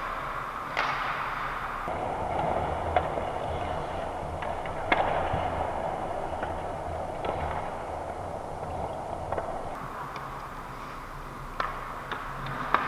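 Ice hockey play close to the goal: skates scraping across the ice, with a few separate sharp clacks of sticks and puck. The loudest clack comes about five seconds in.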